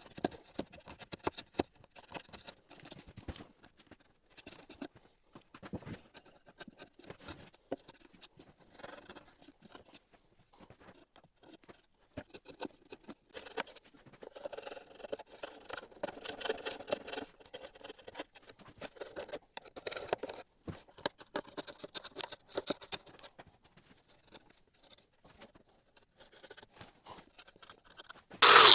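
Workshop handling noises: scattered clicks, taps and scratches of hand work. A power tool starts loudly just before the end.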